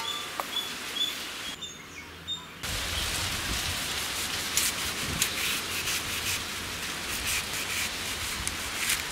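Birds chirping faintly for the first couple of seconds; then, after a cut, a knife scraping the skin off elephant foot yam slices in short, irregular scraping strokes over a steady hiss of background noise.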